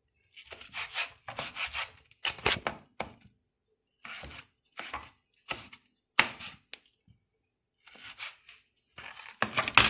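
Knife chopping capers, in several short runs of quick strokes with pauses between.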